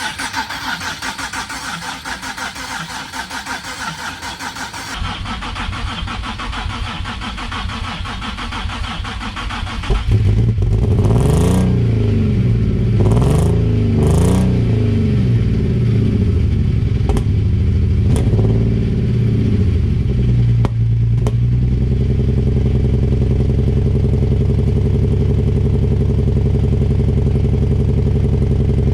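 Nissan VQ37VHR V6, swapped into a 350Z, cranked on the starter for about ten seconds before it catches and fires. The revs rise and fall several times, then it settles into a steady idle.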